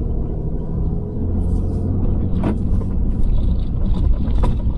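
Ram 2500 pickup with a 6.7 Cummins diesel driving over a washboard dirt road: a steady low rumble of engine and tyres, with two sharp knocks, about two and a half and four and a half seconds in, as the suspension takes the bumps.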